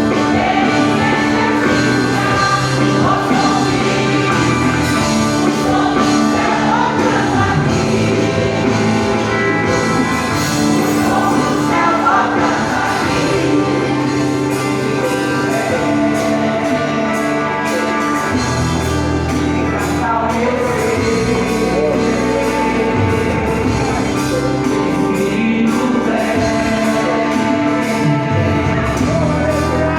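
Church choir singing a Christmas cantata with instrumental accompaniment and a steady bass line.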